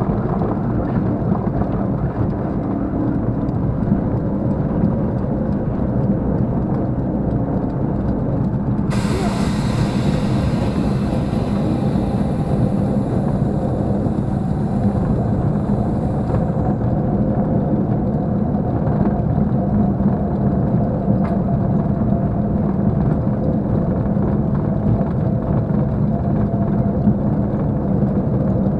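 Supermarine Spitfire's V12 piston engine running at low power while the aircraft taxis, heard from the cockpit as a steady drone. About nine seconds in a hiss joins it and stops some seven seconds later.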